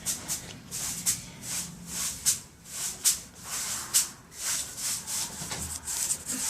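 Glitter slime being squished and stretched by hand: a run of irregular crackling squishes, with four sharper pops about a second apart.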